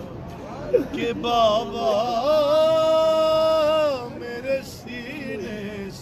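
A man chanting a noha, an Urdu mourning lament, solo and unaccompanied. His voice slides and wavers, then holds one long note from about two to four seconds in.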